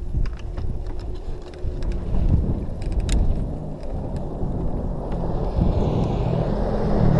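Dirt-bike engines running at idle, with wind on the microphone and a few sharp clicks in the first seconds; near the end one engine's note gets louder as it is revved.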